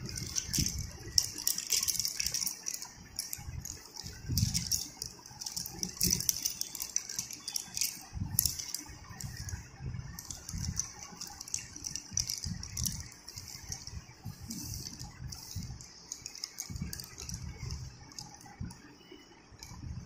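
A pile of dry chalk sticks clattering and clinking against one another as a hand stirs and spreads them, with many irregular light clicks and a few duller knocks.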